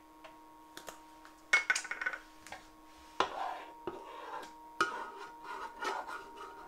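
A spatula scraping and stirring in a frying pan, with several knocks of the utensil against the pan, the louder ones about three and five seconds in.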